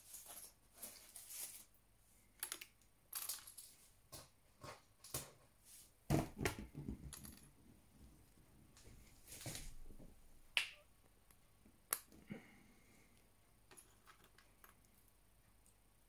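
Scattered light clicks, taps and rustling from hands handling a small metal pen-style toothpick gun and toothpicks. A denser spell of knocks and rustling comes about six seconds in, followed by a few single sharp clicks.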